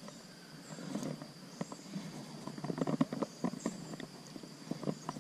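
Spinning rod and reel being worked while a hooked fish is played, giving irregular light clicks and knocks several times a second.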